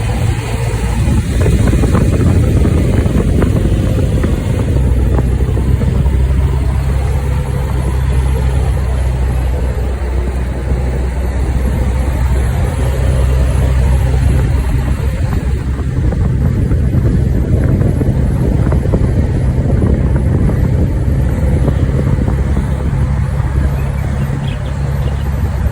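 A vehicle being driven, with steady low rumble and road noise and a recurring squeak while it moves.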